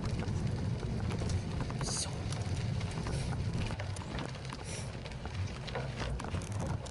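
Trek 920 gravel bike rolling over a dirt and gravel trail: tyres crunching over loose stones with scattered clicks and rattles from the bike, over a steady low rumble of wind on the handlebar-mounted microphone.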